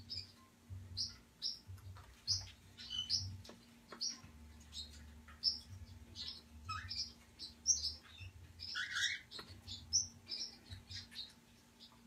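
Pet parrots, a white-capped pionus and a young cockatiel, chirping: many short high chirps in quick succession, several a second, with a louder, lower call about nine seconds in.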